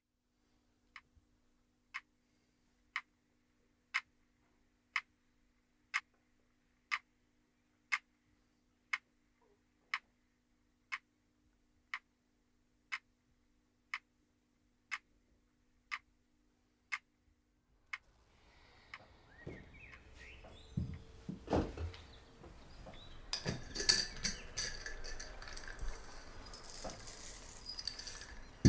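A clock ticking once a second in a quiet room over a faint steady hum, about seventeen ticks. After the ticking stops, breakfast things clatter and clink: a bowl, spoon and glass jar being handled on a table.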